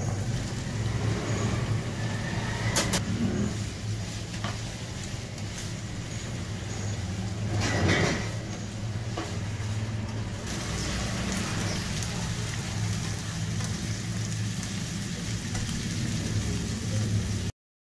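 Sliced onions sizzling in hot oil in a nonstick frying pan as they are sautéed with a spatula, with a few scrapes and taps of the spatula, over a steady low hum. The sound cuts off suddenly near the end.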